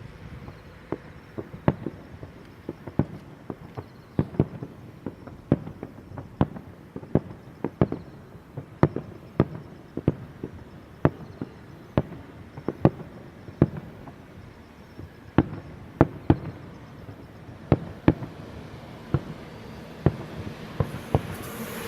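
Starmine fireworks display: a rapid, irregular series of sharp shell bursts, often one to three bangs a second. Wind noise on the microphone swells in near the end.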